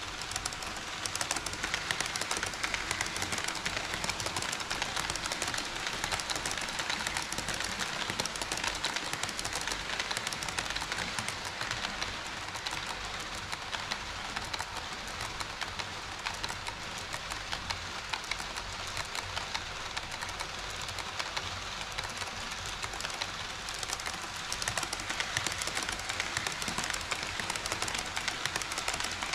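HO scale model train running on KATO Unitrack, a steady rattling of wheels on rails packed with fast, fine clicks.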